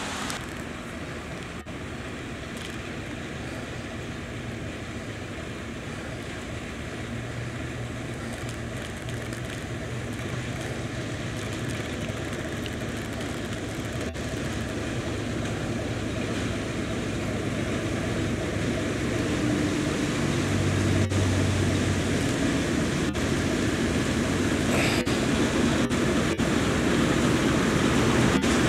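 Class 09 diesel shunter's engine running as the locomotive approaches, a low hum growing steadily louder as it nears.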